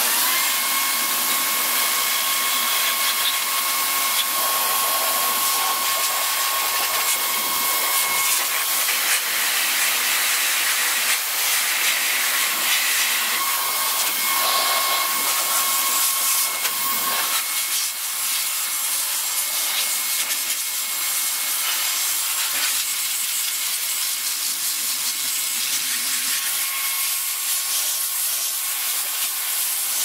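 Baseus A3 cordless car vacuum running in blower mode, blowing dust out of a desktop computer case. It makes a loud, steady rush of air with a high motor whine. The whine rises as the motor comes up to speed at the start, then drops out and returns at times.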